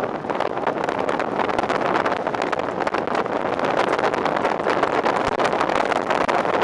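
Wind buffeting the microphone over the steady road and engine noise of a moving vehicle, recorded from a vehicle on the move.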